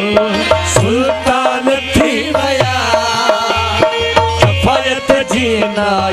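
Live Sindhi devotional folk music: a harmonium melody over a steady beat of hand-drum strokes.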